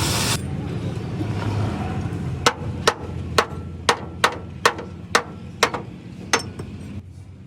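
Hammer blows on steel: about nine sharp, slightly ringing strikes at roughly two a second, over a low steady hum. A loud rushing noise cuts off in the first half second.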